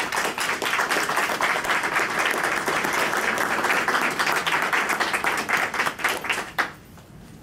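Audience applauding, a dense patter of many hands clapping that dies away about a second before the end.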